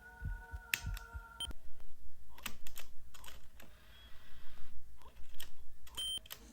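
A run of sharp plastic clicks and clacks from an Aiwa HS-JX849 cassette Walkman's controls being pressed and the unit handled. A steady tone stops with a click about one and a half seconds in.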